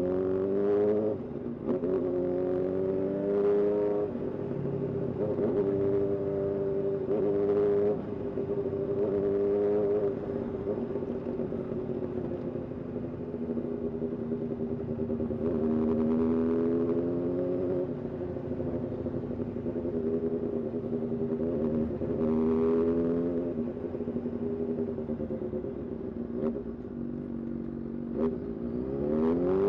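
Honda CBR600 motorcycle's inline-four engine running under way. Its pitch holds fairly steady with several swells and dips in throttle, and it climbs as the bike accelerates right at the start and again near the end.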